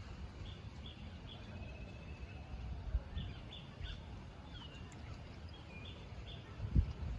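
Small birds chirping: short high chirps in groups of two or three, with a few sliding whistled notes, over a steady low rumble. A dull thump sounds near the end.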